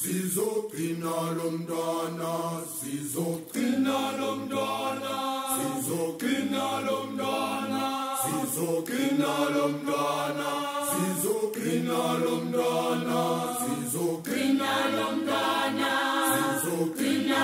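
Background music: a choir singing in harmony, in sustained phrases of a few seconds each.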